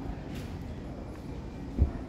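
Steady low outdoor background rumble of a walkway, with one short, loud low thump near the end.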